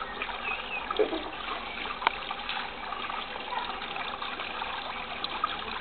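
Water from a garden hose spraying out and splattering onto the surface of a paddling pool, a steady rushing splash.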